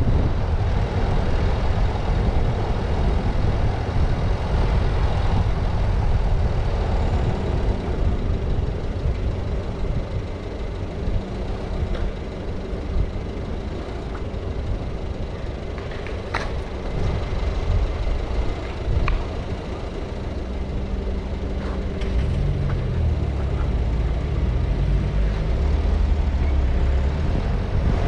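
Steady engine and tyre noise of a car driving on city streets. A few sharp clicks come about two-thirds of the way in, and the engine note rises and falls near the end.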